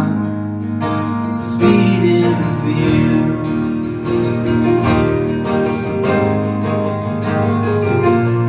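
Live acoustic country band playing between sung lines, led by two strummed acoustic guitars with a steady strumming rhythm.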